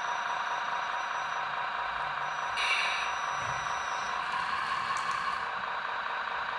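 Hydraulic pump and drive motor of a radio-controlled CAT 320 excavator model whining steadily as the boom and bucket are worked, with a short hiss about two and a half seconds in.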